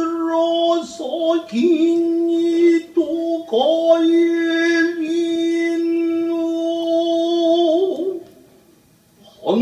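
Nagauta singing: a voice drawing out long held notes, each one scooping up into pitch, with one long note held for several seconds before a short pause near the end.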